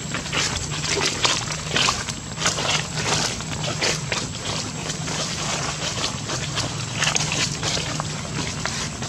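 Footsteps crunching and rustling through dry fallen leaves on grass, in short irregular crackles, over a steady low hum.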